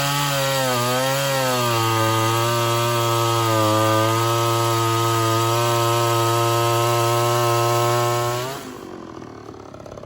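Homelite Super XL Auto 58 cc two-stroke chainsaw running at high revs while cutting through wood. The pitch sags slightly under load about a second in, then holds steady. The engine note stops near the end.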